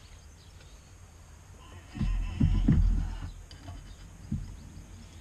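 A cast-iron bench vise being worked: a cluster of heavy knocks with a brief high metallic scrape about two seconds in, then a single click a little later, amid quieter handling of metal parts.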